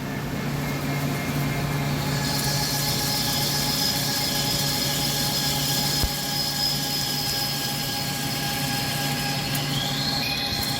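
CNC lathe running: a steady machine hum and whine with a hiss that builds about two seconds in, and a whine rising in pitch near the end.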